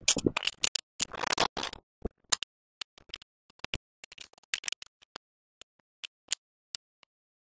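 Footsteps of a runner on a track, heard as sharp irregular ticks and taps. They come thick in the first two seconds, then sparser, about two or three a second.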